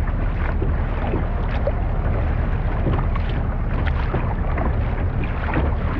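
Wind buffeting the microphone in a steady low rumble, with water lapping and splashing in small irregular bursts against a moving kayak's plastic hull.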